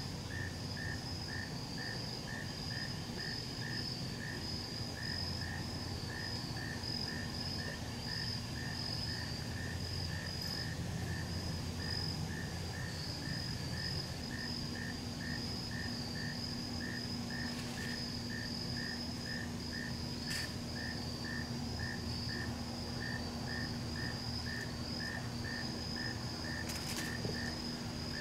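Dusk chorus of crickets and other insects: a steady high-pitched trill over a lower chirp repeating about two and a half times a second, with a faint low hum underneath.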